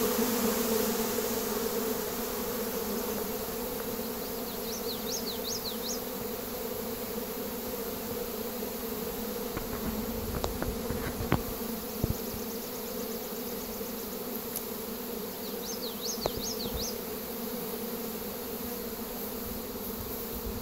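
Steady loud hum of a honeybee swarm in flight, thousands of bees filling the air around the hive. A short high chirp sounds twice over the hum, a few seconds in and again past the middle.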